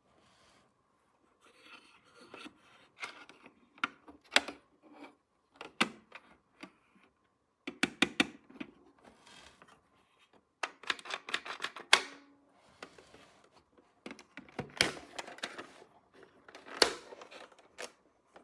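Hands handling small plastic toy pieces and packaging from a toy doctor and dentist play set: irregular clusters of clicks, taps and rustles, with the loudest clatters about 8, 12 and 17 seconds in.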